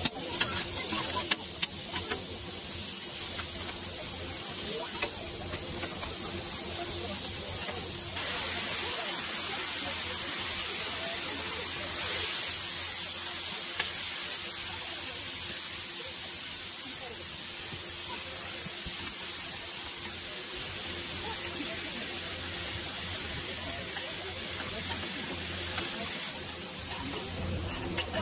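Cabbage and yakisoba noodles sizzling steadily on a hot flat iron griddle, with metal spatulas scraping and tossing them. Sharp clicks in the first couple of seconds come from the spatulas chopping the cabbage against the griddle.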